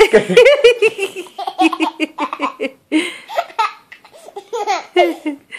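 Baby laughing in rapid repeated bursts of high-pitched giggles, with short pauses between runs.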